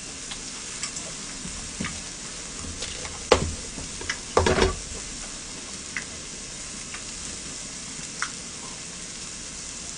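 Scallop adductor and shiitake mushrooms sizzling steadily on a grill pan, with a few clicks of metal chopsticks against dishes, loudest a little after three seconds and around four and a half seconds in.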